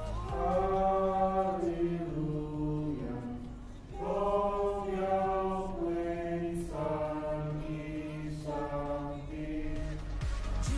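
Choir singing slow, sustained chords in long held phrases, with a short break about four seconds in.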